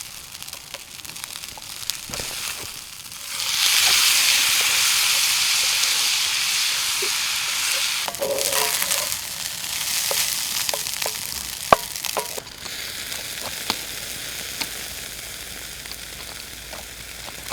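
Chicken sizzling on a grill over a campfire, a steady hiss with scattered sharp pops. The sizzle grows much louder about three and a half seconds in and drops back about twelve seconds in.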